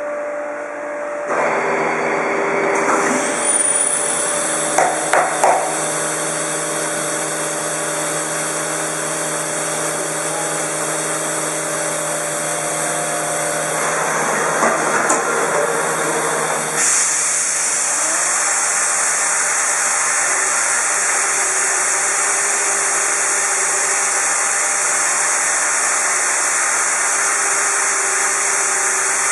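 Shoda CNC router running, its spindle giving a steady high whine from about three seconds in over a steady machine hum, as it trims a pressure-formed plastic keyboard cover. A few short knocks come around five seconds, and the high hiss grows louder about seventeen seconds in.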